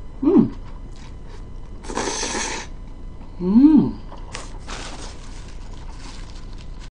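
Jjolmyeon noodles being eaten close to the microphone: a slurp about two seconds in, chewing, and two short hummed "mm" sounds, a brief one at the start and a louder one about halfway through, then a short rustle.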